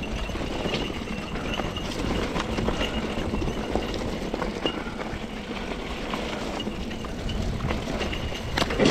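Mountain bike rolling down a rocky dirt trail: tyres crunching over loose stones, with the bike rattling and knocking sharply over bumps and a harder knock near the end.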